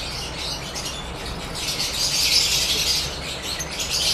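Caged lovebirds chattering and chirping together in a dense, high twittering that swells about halfway through.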